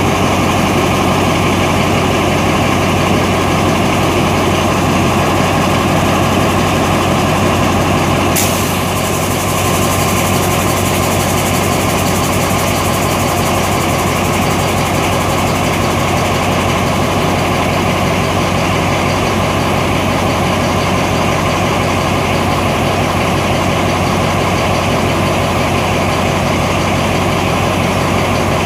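Alsthom AHK diesel locomotive no. 4207 idling steadily while standing still, with one short sharp click about eight seconds in.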